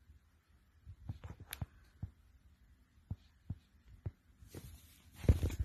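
Faint handling noise from a hand-held camera: soft, irregular low thumps and a few light clicks, then a louder rustle with thumps about five seconds in.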